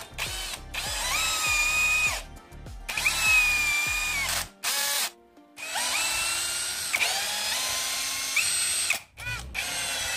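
Cazar CZ-21VD 21 V brushless cordless drill/driver driving a wood screw into teak in several short trigger-pulled runs. The motor whine climbs in pitch as it spins up at the start of each run, holds steady, then cuts off, with brief pauses between runs.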